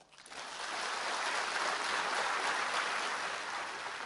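Audience applauding. The clapping builds up over about the first second into a steady applause, then cuts off abruptly near the end.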